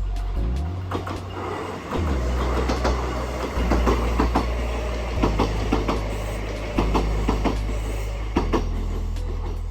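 Kintetsu Minami Osaka Line electric train running past, its wheels clacking over the rail joints in a string of sharp clicks, several in quick succession, over a steady low rumble.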